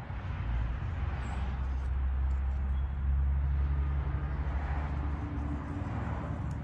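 Low, steady engine rumble of a vehicle, swelling to its loudest about three seconds in and then easing off.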